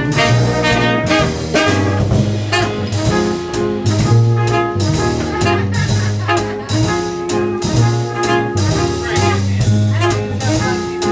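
Live jazz band playing an instrumental fill between sung lines: brass horns over bass and drums in a steady swing.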